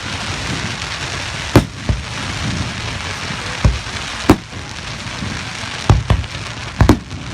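Fireworks display: aerial shells bursting with sharp bangs at irregular intervals, several in quick succession near the end, over a steady crackling hiss.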